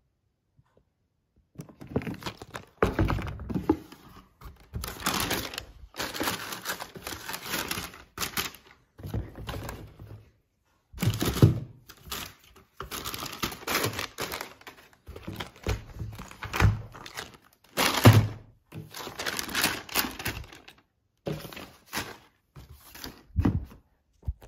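Tissue paper rustling and crinkling in a cardboard shoebox, with dull thuds from the box and the sneakers being handled. The sounds start about a second and a half in and come in irregular bursts.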